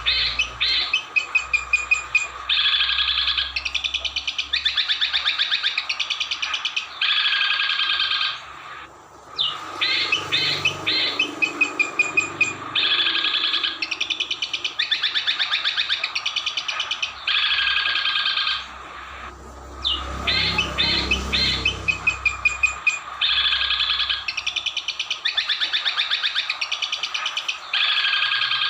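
Recorded songbird-training song (masteran): fast chattering trills and high chirping phrases played one after another. The same sequence repeats about every ten seconds, as in a loop.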